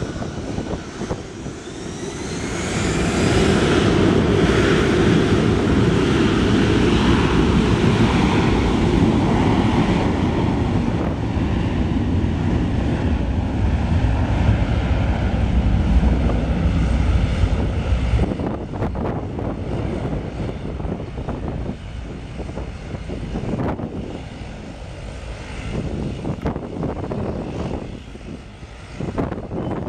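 Airbus A340-300's four CFM56 turbofan jet engines under taxi thrust: a rising whine as the power comes up in the first few seconds, then a loud steady rumble that eases off after about 18 seconds.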